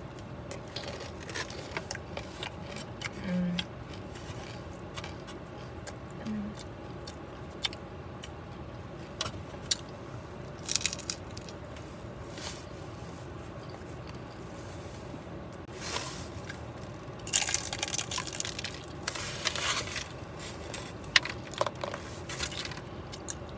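Close-up eating of crunchy fried rolled tacos with guacamole and sour cream: irregular bites and chewing, crunching with wet squishing, with a busy run of crunches about three-quarters of the way through.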